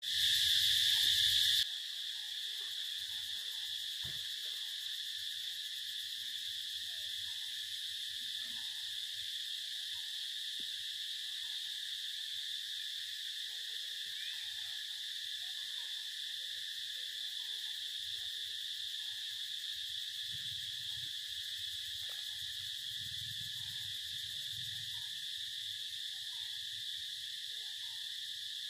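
Steady, unbroken high-pitched insect chorus, with a weaker, lower drone under it. It is louder for the first second and a half, then holds even.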